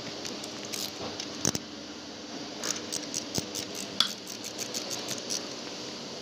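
Scattered light metallic clicks and taps of hand tools and small transmission parts being handled, with sharper knocks about a second and a half in and at about four seconds.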